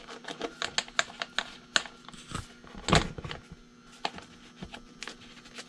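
Irregular light clicks and taps, several a second with a louder knock about three seconds in, as a small metal bolt is handled and threaded in by hand against an engine cover.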